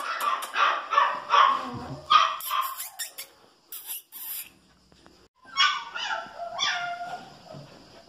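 Puppies play-fighting, giving high-pitched yips and small barks in two bouts: a quick run at the start and more about six seconds in, some sliding down in pitch.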